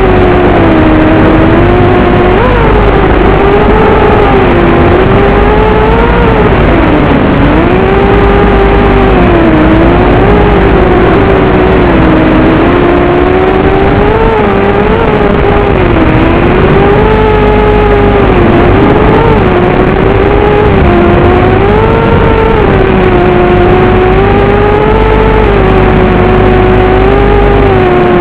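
FPV racing quadcopter's motors and propellers buzzing loudly. The pitch rises and falls constantly as the throttle changes through the laps.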